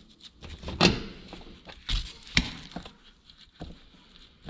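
A few sharp knocks and clicks, the loudest about a second in, with two more strong ones near two and two and a half seconds and fainter ticks between.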